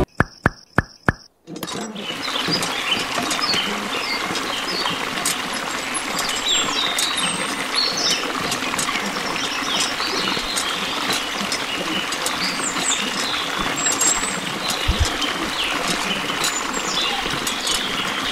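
A few sharp clicks in the first second and a half, then a steady splash of water pouring from a miniature hand pump's spout into a small basin. Bird chirps run over it throughout.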